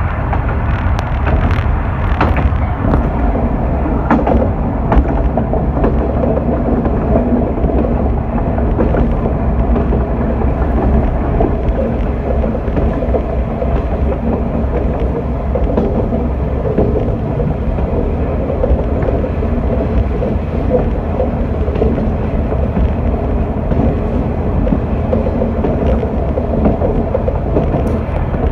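Diesel railcar running steadily along the line, heard from the cab: a continuous low rumble of engine and wheels on rail, with a few sharp clicks now and then.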